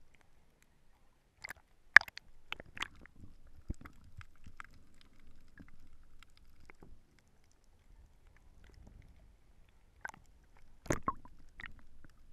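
Underwater sound picked up by a GoPro in its waterproof housing: a muffled low rumble of moving water with scattered sharp clicks and snaps, the loudest about two seconds in and a cluster near the end.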